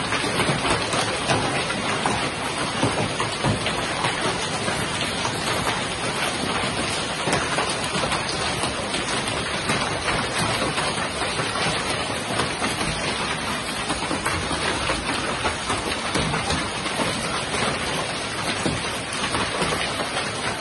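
Heavy rain with hail pouring down, a dense steady hiss dotted with many small sharp hits.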